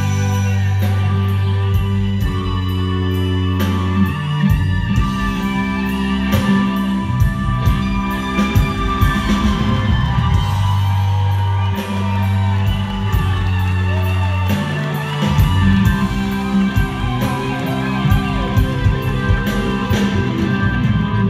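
Rock band playing live: electric guitar over held bass notes, keyboards and a steady drum beat.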